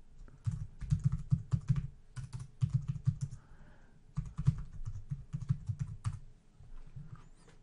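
Computer keyboard typing in quick runs of keystrokes, thinning to a few scattered clicks after about six seconds.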